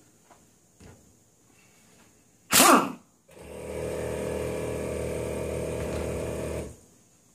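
Impact wrench running for about three and a half seconds, hammering off the nut on a Toyota 80 series power steering pump's drive gear. It is preceded by a short, loud burst of noise about two and a half seconds in.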